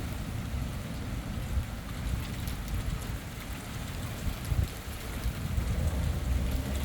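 Steady rain falling, with scattered sharp drop ticks over a low rumble.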